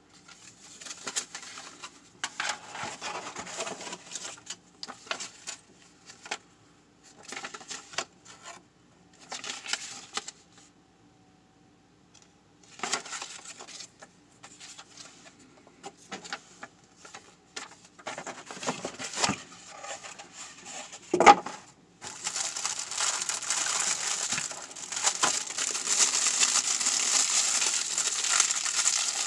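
Hands unpacking a light kit: intermittent rustling of paper inserts and cardboard packaging, with one sharp knock about two-thirds of the way through. Then steady, louder crinkling of the clear plastic bag wrapped around the kit's accessories.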